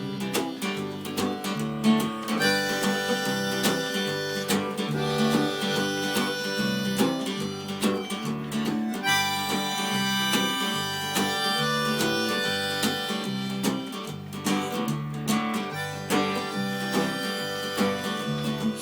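Instrumental break of a folk song: a harmonica plays long, held melody notes over strummed acoustic guitar.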